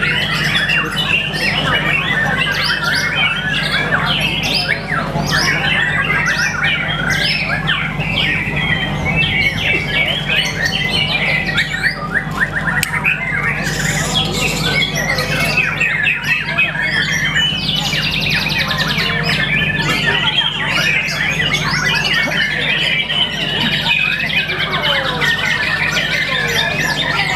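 White-rumped shama (murai batu) singing a long, unbroken run of fast, varied whistles, chirps and trills, over a steady low hum.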